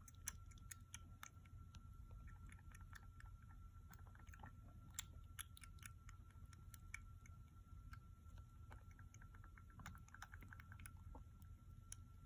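Kitten suckling milk from a nursing bottle's nipple: a continuous run of faint, irregular wet clicks and smacks of the tongue and mouth.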